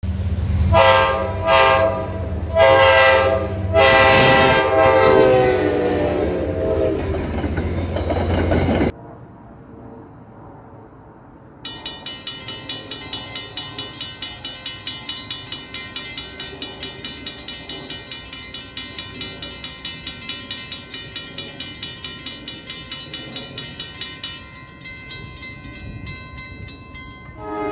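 A passenger train's air horn sounds several blasts, the last held for a few seconds, over a low engine rumble. After a cut, a railroad crossing warning bell rings in a rapid, even beat for about twelve seconds, then stops, and a distant horn is heard near the end.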